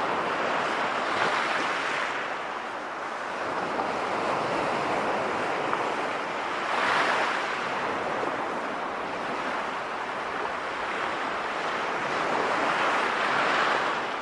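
Sea waves washing in on a shore, a steady surf that swells and breaks three times, about six seconds apart.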